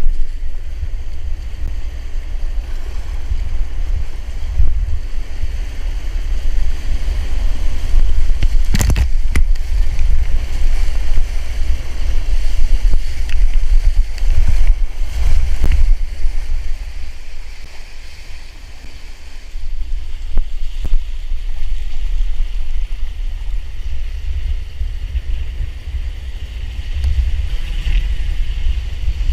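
Class 2 whitewater rapids rushing and splashing around a kayak, with wind buffeting the camera microphone in a heavy low rumble. A few sharp splashes stand out, the loudest about nine seconds in.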